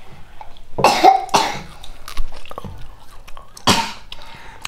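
A person coughing from a cold with a runny nose: two coughs close together about a second in, and a third near the end.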